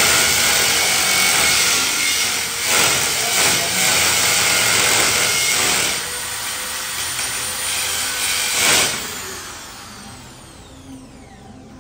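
A power tool running steadily, dropping in level about six seconds in and dying away near the end.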